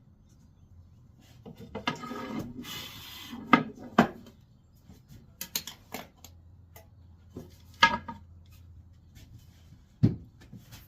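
Wood and tools being handled on a workbench: a series of separate knocks and clatters, with a short scraping rub about two seconds in.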